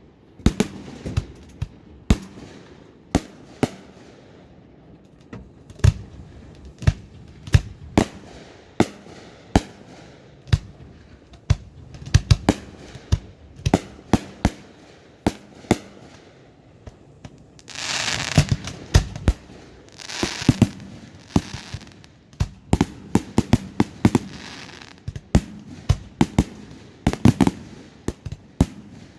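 Fireworks display: aerial shells bursting in quick, irregular succession, dozens of sharp bangs. Twice, about two-thirds of the way through, a longer hissing, crackling burst rises over the bangs.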